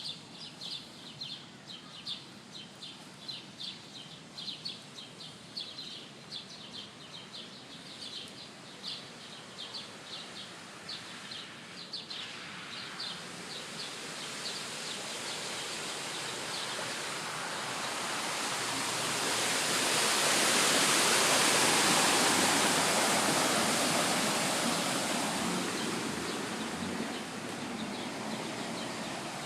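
Repeated high chirps, about two or three a second, over a steady outdoor hiss. They stop about twelve seconds in, as a rushing noise swells, is loudest around twenty seconds in, and then eases off.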